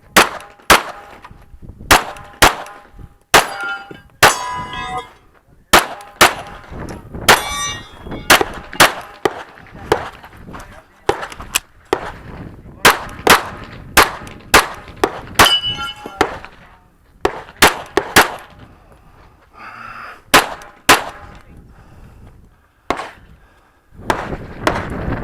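Rapid 9mm pistol fire from a Smith & Wesson M&P9L, shots coming in quick pairs and strings with short pauses between. Several shots are followed by the ringing clang of steel targets being hit.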